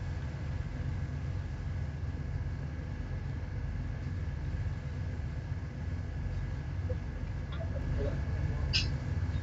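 Ship's engine running with a steady low rumble and a constant hum. A brief high squeak comes near the end.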